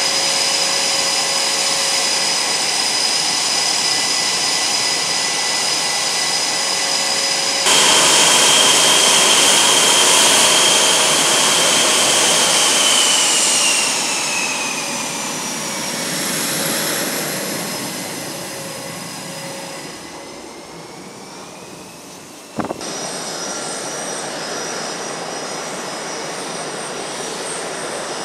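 Jet engines of two-seat Super Hornet fighter jets running on the flight line, a loud steady whine with high tones. Partway through, one taxiing jet's whine slides down in pitch and fades as it moves past and away, and the sound changes abruptly twice as the shots change.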